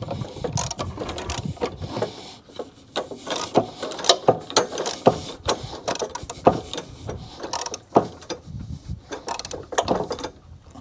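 Socket ratchet wrench clicking in quick runs of ratcheting as a mower-deck blade bolt is cranked down tight on its spindle.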